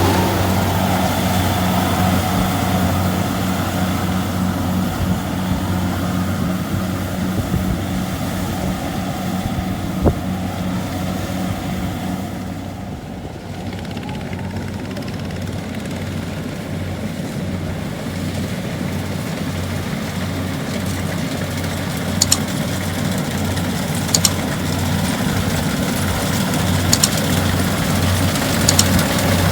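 Kubota combine harvester's diesel engine running steadily with a low, slightly pulsing hum. It eases off a little midway, and a few sharp clicks come near the end.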